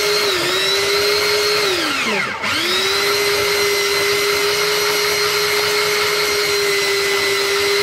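Electric rotary grater's motor running at a steady whine as its spinning drum grinds dry fruits into powder. About two seconds in the motor briefly winds down and spins back up.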